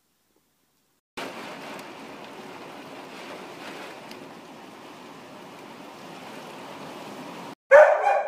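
Steady rain and wind, an even hiss that starts abruptly about a second in and cuts off near the end. Then a dog barks loudly.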